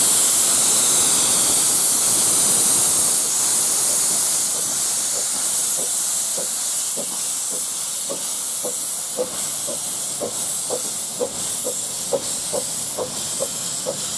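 Yorkshire Engine Company 4-6-2 'Winston Churchill', a 15-inch-gauge miniature steam locomotive, moving off with its cylinder drain cocks open and making a loud, continuous steam hiss. About four seconds in, a regular beat joins and quickens as the train gathers speed.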